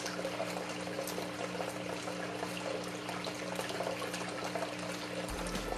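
Water running steadily through a small sluice box's gold trap, over a steady low hum.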